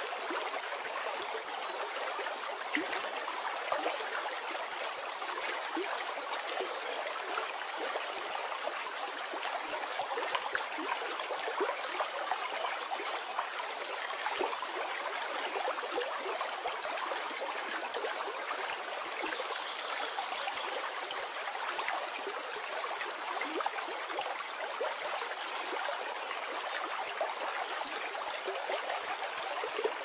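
Mountain stream rushing over rocks in whitewater: a steady, even water rush with small splashes in it.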